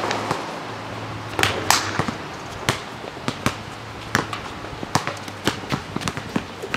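Basketball dribbled on an outdoor asphalt court: irregular sharp bounces, about one to two a second, with the loudest about a second and a half in, mixed with players' shoe scuffs. A faint, steady low hum runs underneath.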